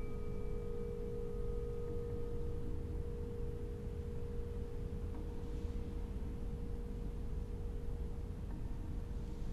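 Ambient space soundtrack: a steady pure tone, a little higher than the one just before, enters at the start and is held throughout over a low drone. Faint higher overtones die away within the first two seconds.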